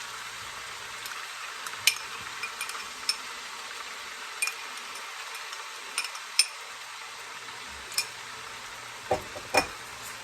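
Pork sizzling in hot oil and soy-oyster sauce in a pot, a steady hiss, with scattered clicks of a utensil stirring against the pot and a few louder knocks near the end.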